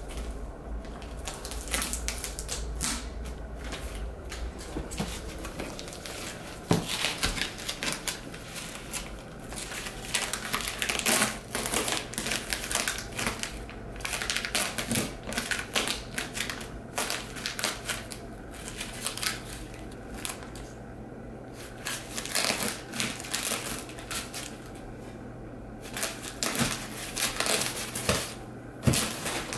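Airedale terrier puppy tearing and chewing packing tape off a cardboard box: irregular spells of ripping, crinkling and scratching on the cardboard, broken by short pauses.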